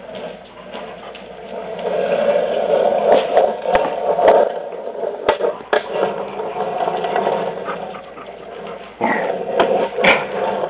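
Casters of a rolling mechanic's stool running over a concrete floor as a Labrador tows it by a rag, with scattered sharp clicks of the dog's claws on the concrete. The rolling sound swells about two seconds in and picks up again sharply near the end.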